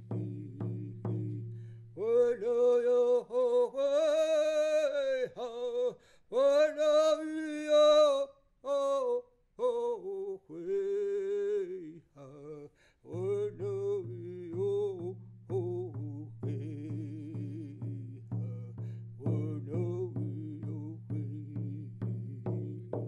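Singing with a drum. A steady drumbeat stops about two seconds in while a voice sings long held notes alone, then returns about thirteen seconds in with the singing over it.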